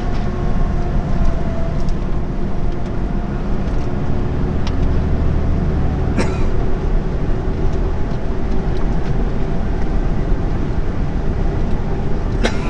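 Steady drone of a delivery truck's engine and tyres at motorway speed, heard from inside the cab. A couple of short clicks come through about six seconds in and near the end.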